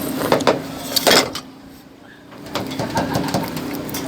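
Sharp clicks and clatter, loudest just after a second in, over a steady low hum, typical of a spoon against a bowl during a meal.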